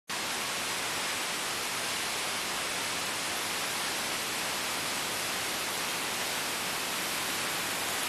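Steady, even rush of a waterfall's falling water, holding at one level throughout.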